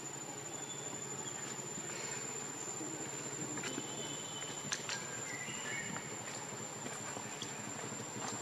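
Insects droning steadily with one high, unbroken tone, with a few faint short chirps and ticks about halfway through.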